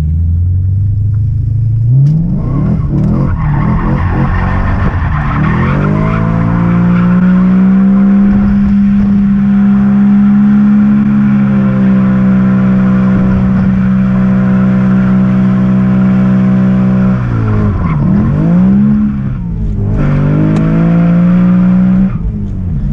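BMW E92 M3's V8 revving up and held at steady high revs for about ten seconds while the rear tyres spin and squeal. The revs then drop and swing briefly and pick up again near the end.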